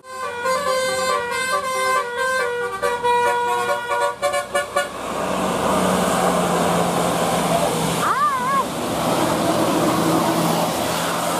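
Bus telolet horn, a set of multi-tone air horns, playing a quick tune of changing notes for about five seconds, then steady bus engine and road noise. About eight seconds in there is a brief wavering high call.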